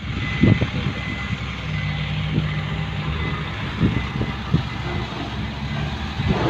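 Dump truck engine running steadily, with several short knocks and a faint high beep repeating.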